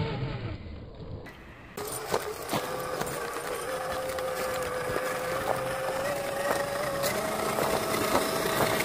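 Electric drive motor and gearbox of a scale RC rock crawler whining steadily as it drives over dirt, the whine stepping slightly higher in pitch near the end. Occasional sharp clicks come from the tyres and running gear on stones.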